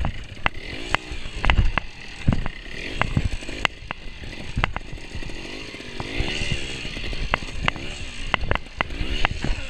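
Trials motorcycle's single-cylinder engine being blipped up and down at low speed, its pitch rising and falling in short bursts. Sharp clacks and a few heavy thumps come from the bike clattering over logs and roots.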